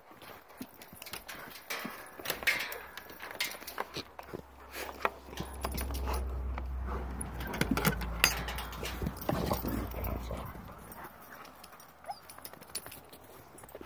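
Dog sounds among scattered clicks and knocks, with a low rumble through the middle.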